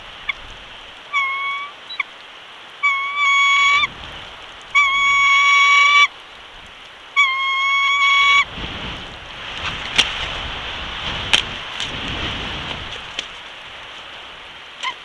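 Four long, steady honks of about a second each, evenly pitched. Then a gust of wind rumbles on the microphone for several seconds, with a few sharp taps.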